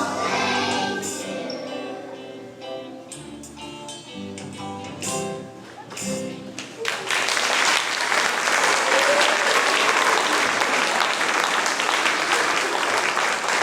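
The closing bars of a song with held, pitched notes, then an audience clapping from about seven seconds in, louder than the music and steady to the end.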